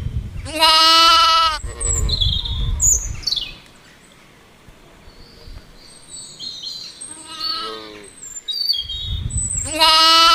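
A farm animal bleating: two loud, wavering calls about nine seconds apart and a fainter one between them, with short bird chirps in the gaps.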